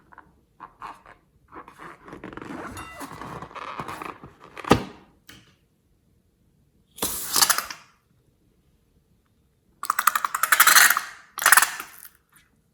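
Slime being squeezed and stretched by hand, crackling with rapid little pops of trapped air, in separate bursts, with one sharp snap just before the middle.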